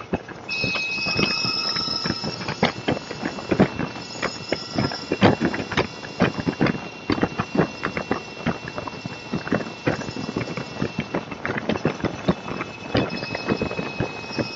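A motorcycle ridden at freeway speed, heard through a bike-mounted camera: dense, irregular crackling and knocking from wind buffeting and rattle at the microphone, over road noise, with a thin steady high whine.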